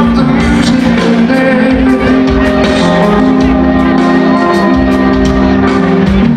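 Rock band playing live, heard from within the audience: drums, keyboard, electric guitar and violin, with long held notes over a steady beat.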